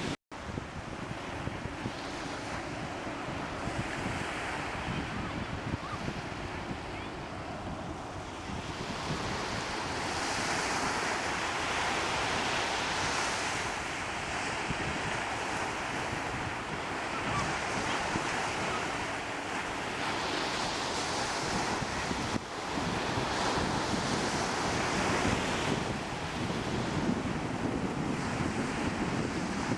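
Waves washing in, swelling and fading every few seconds, with wind rumbling on the microphone. The sound cuts out for an instant at the very start.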